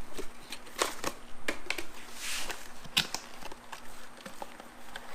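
Packaging being opened and handled by hand: scattered clicks and taps, with a short rustle about two seconds in.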